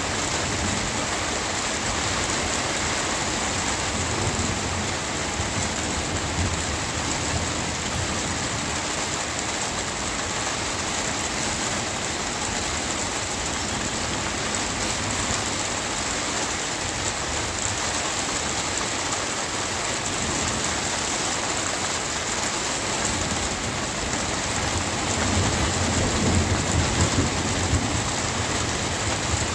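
Steady rain falling, with a low rumble of thunder that swells about twenty-five seconds in and fades a few seconds later.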